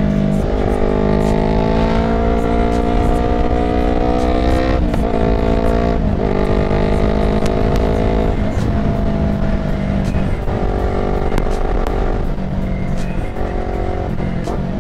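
Yamaha YZF-R3's parallel-twin engine running through a full Akrapovič exhaust under way: its note climbs with throttle and drops back several times as gears change, over a low wind rumble.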